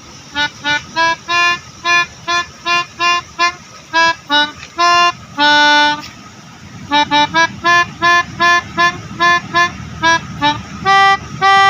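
Telolet horn, a multi-tone musical horn of the kind fitted to Indonesian buses, playing a melody of short staccato notes, with a longer held note about halfway through followed by a brief pause, and another held note near the end.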